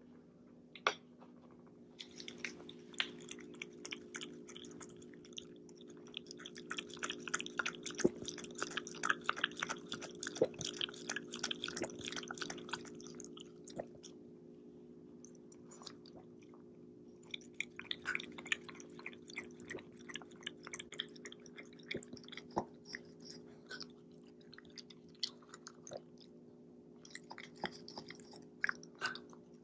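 Shiba Inu chewing and crunching food in quick, wet bites. It goes in two long spells, with a pause of a few seconds about halfway through.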